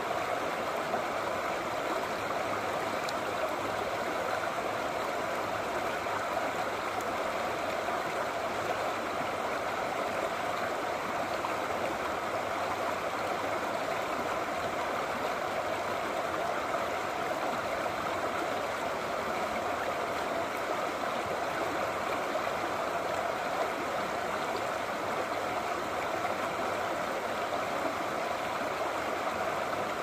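Brook babbling steadily: a constant, even rush of running water.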